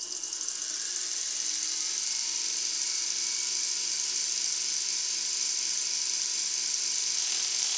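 Milling machine spindle with a dovetail cutter starting up and running, a steady whir with a high hiss that rises over the first second and then holds level.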